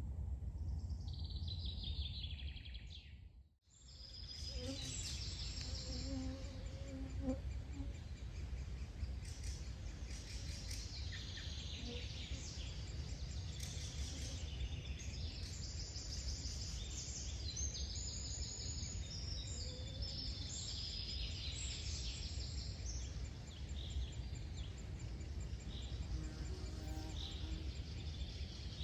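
Summer forest ambience: several birds singing and chirping over a steady low rumble. The sound fades out and back in about three and a half seconds in.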